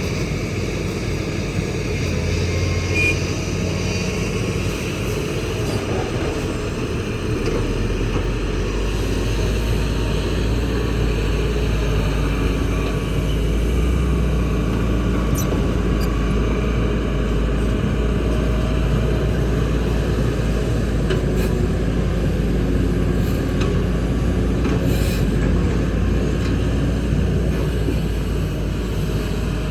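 Kobelco excavator's diesel engine running steadily as the machine works; a deeper low rumble comes in about seven seconds in, and a few sharp knocks sound later on.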